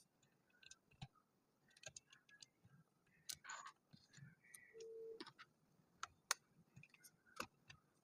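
Plastic interlocking building bricks being handled and pressed together: scattered faint clicks and taps at an uneven pace. A brief steady tone sounds about five seconds in.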